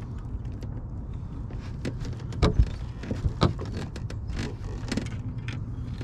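Steady low electric hum, with a few sharp knocks and clicks about halfway through as a small bass is handled and unhooked on a boat deck.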